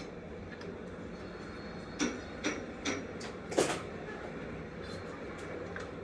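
A steel shaft being set in a lathe's three-jaw chuck: a handful of sharp metal knocks, four of them in under two seconds starting about two seconds in, over a steady machine hum.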